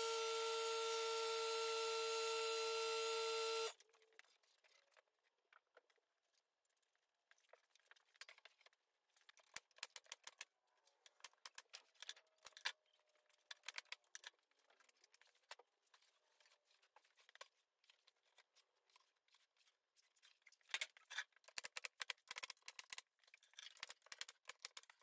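A steady electronic tone with overtones for the first few seconds, cutting off suddenly. It is followed by faint, scattered sharp clicks from a pneumatic brad nailer being fired along the top of an MDF panel, coming thick and fast near the end.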